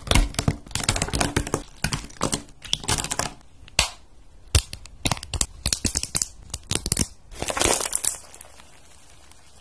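Slime being pressed and squished by hand: a rapid run of sharp crackles and pops, then a longer crackling squelch near the end.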